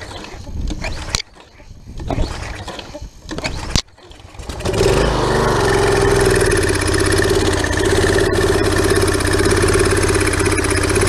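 Briggs & Stratton small engine on a pressure washer being cranked a couple of times on a shot of starter fluid. It catches about four and a half seconds in and keeps running steadily, with old stale gasoline still in its fuel system.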